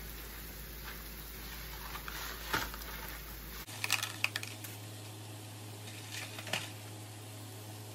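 A few light clicks and taps from seasoning containers being handled over a cast-iron skillet of cooking mushrooms, over a steady hiss.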